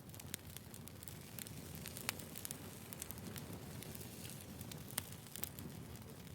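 Wood campfire burning, with a steady low rumble and irregular sharp crackles and pops of burning wood.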